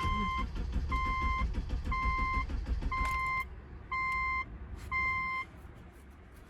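Subaru's dashboard warning chime beeping six times, about once a second, each beep a short steady tone. A low rumble runs under the first three or so beeps.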